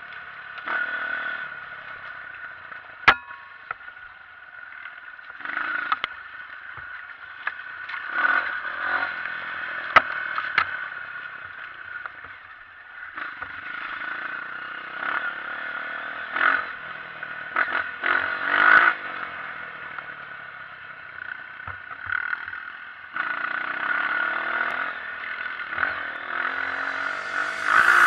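Honda CRF230 dirt bike's single-cylinder four-stroke engine revving up and down as it is ridden over rough trail. The bike rattles throughout, with sharp knocks about 3 and 10 seconds in.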